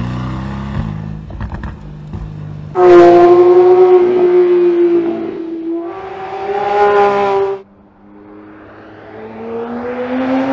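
Mercedes-AMG GT R's twin-turbo V8 running low with crackles, then a cut to a Porsche 911 GT3's flat-six revving high on track, its pitch easing down. It cuts off abruptly, then builds again with rising pitch near the end.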